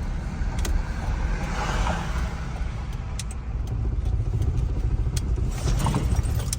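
Steady low rumble of a vehicle being driven, with a few light clicks or rattles.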